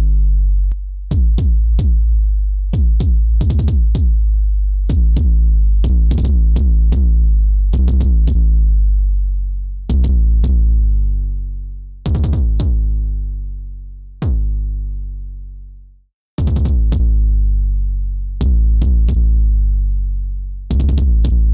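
Synthesized 808-style kick drum from FabFilter Volcano 3 playing a repeating pattern: each hit a short click over a long, sustained low boom from the self-oscillating filter. The boom's tone shifts as the filter style is switched and its drive adjusted, with a brief dropout about 16 seconds in.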